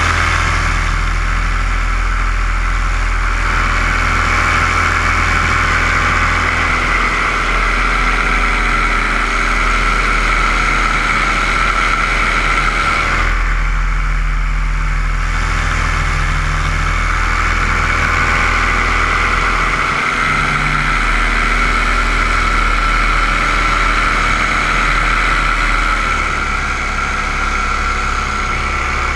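Steady whine of a radio-controlled aircraft's motors and propellers, heard from the camera on board, easing briefly about halfway through.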